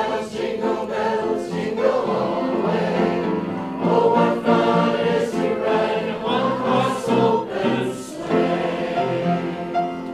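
A group of voices singing together in harmony, choir-style, with long held notes.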